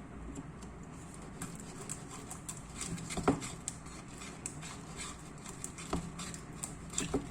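Homemade slime being mixed and worked, making faint irregular sticky clicks and squelches, with a few louder pops.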